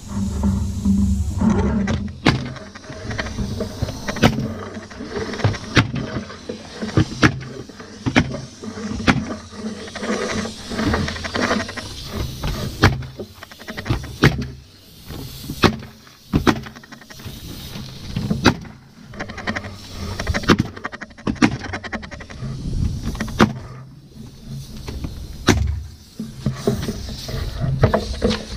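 Ridgid pneumatic coil roofing nailer firing nails through felt paper into the roof deck: sharp shots at an irregular pace, about one a second and sometimes two in quick succession, with short pauses between runs, over a low rumble.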